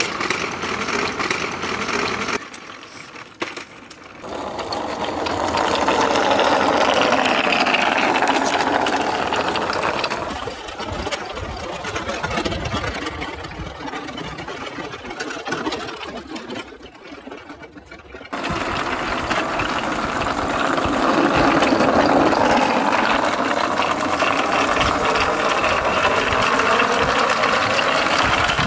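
Small motor of the wooden toy fire truck whirring steadily, its pitch gliding up and down as it speeds up and slows down. It drops away briefly about three seconds in, runs quieter for a stretch in the middle, then picks up suddenly again.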